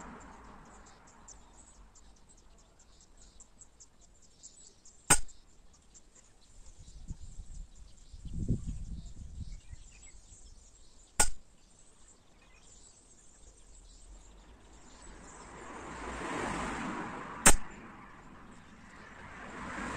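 Three shots from a Gamo Coyote PCP air rifle, each a single sharp report, about six seconds apart.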